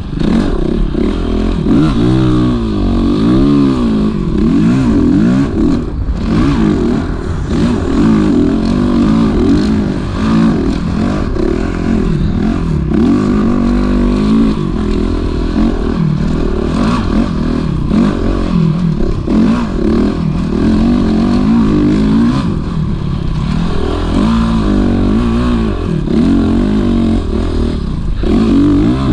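Honda CRF450RX dirt bike's single-cylinder four-stroke engine, heard from on the bike while riding, revving up and down continuously as the throttle is opened and closed, its pitch rising and falling every second or two.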